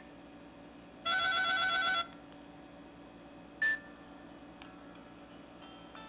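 Nokia 130's small speaker playing a Nokia E5 ringtone: about a second of fast-pulsed, trilling electronic beeps. A single short key beep follows about two and a half seconds later, then faint tones start near the end.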